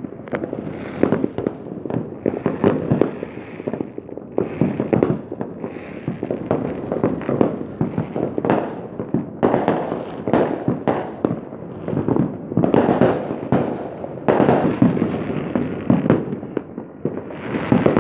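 Fireworks and firecrackers going off in a near-continuous barrage of bangs and crackling pops, with denser, louder flurries now and then.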